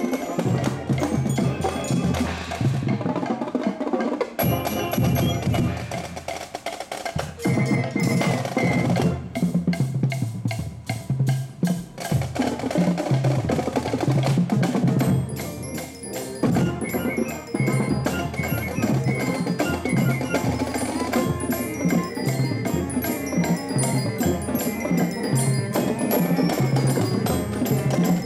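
Marching band playing a full-ensemble passage of brass, saxophones and drums, with mallet percussion ringing out from the front ensemble. The drum strokes grow thicker in the second half.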